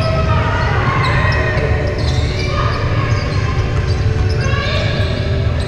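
Basketballs bouncing on a hardwood gym floor, echoing through a large hall, with scattered distant voices.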